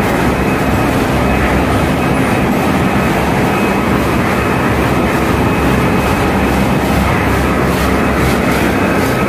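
Loud, steady engine-room machinery noise from a tanker underway, its engines and auxiliary machinery running together as one roar, with a faint steady whine.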